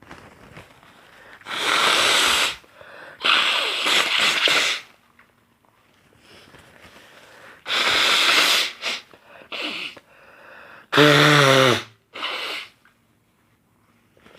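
A man blowing his nose hard into a tissue: three long blows of about a second each, a couple of short puffs, then a loud honking blow with a low pitched tone and a final short blow near the end.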